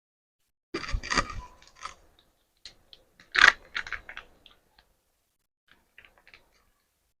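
Kitchen utensils clattering: a spoon knocking and scraping against metal cookware, a short burst of clinks about a second in, one louder knock midway, then a few light ticks.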